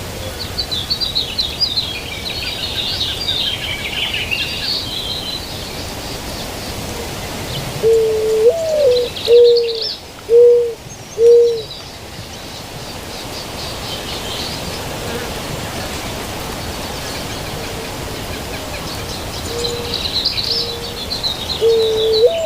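White-winged dove cooing: a phrase of low hoots, the second note swooping up and back down, followed by three short even coos, about eight seconds in; a second phrase begins near the end. Small songbirds chirp and twitter higher up at the start and near the end, over steady outdoor background noise.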